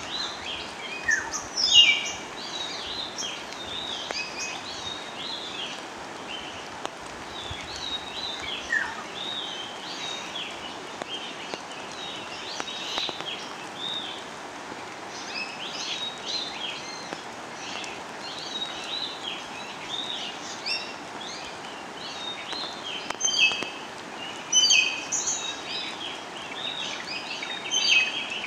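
Birds chirping and calling in quick runs of short high notes, over a steady background hiss; the chirping is loudest about two seconds in and again near the end.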